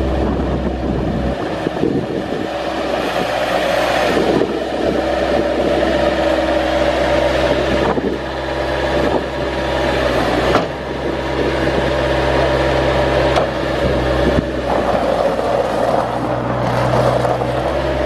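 Kubota four-cylinder diesel of a Bobcat 773 skid steer running steadily, with a few short knocks along the way; its low note grows stronger near the end.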